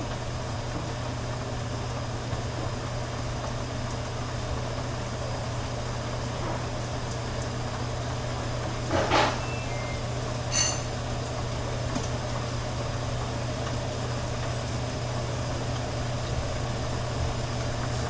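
A steady low hum with an even background hiss, broken by one knock about nine seconds in and a light clink with a short ring about a second and a half later.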